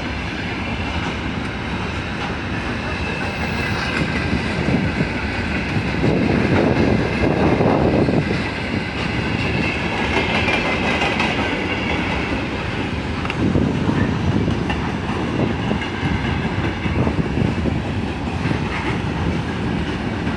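Long-distance passenger train moving along the station platform, its wheels clattering over the rail joints in a steady rolling noise that swells louder twice.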